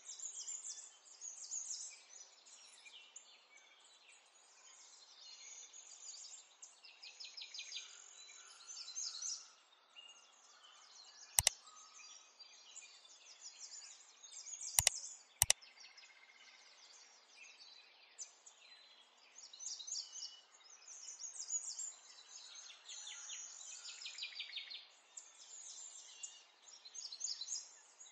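Birds chirping and twittering in a steady background of small calls. Three sharp clicks cut through about 11 seconds in and twice more close together about 15 seconds in.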